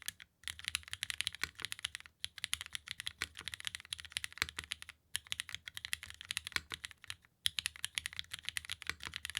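Fast typing on a TGR MIA mechanical keyboard with Cherry MX2A Black linear switches, GMK keycaps, an aluminium plate and no foam. It is a quick run of many keystrokes a second, broken by short pauses about two, five and seven seconds in.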